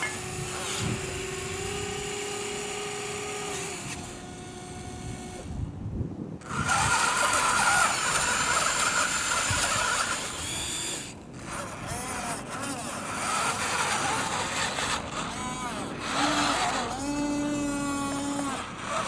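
Small electric gear motors of a radio-controlled toy wheel loader whining in steady pitched tones as the lift arm and bucket move. From about six and a half seconds in there is a louder, noisier stretch as the loader drives into the gravel pile. Later the whines rise and fall in pitch as the motors start and stop.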